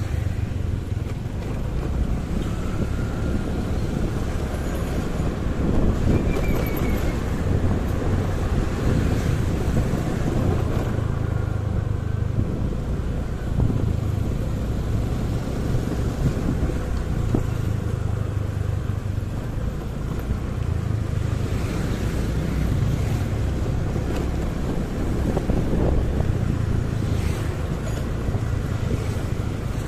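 Motorcycle riding through city traffic: steady low engine and road rumble with wind on the microphone and other vehicles passing.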